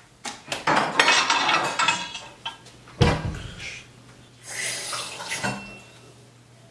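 Dishes and cutlery clattering as a kitchen cabinet and counter are rummaged through, with one loud knock about three seconds in. A short rush of running tap water follows about four and a half seconds in.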